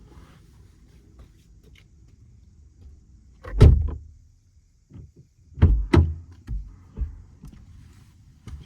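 Car doors shutting: one heavy thump about three and a half seconds in, then two more close together around six seconds, with lighter knocks between.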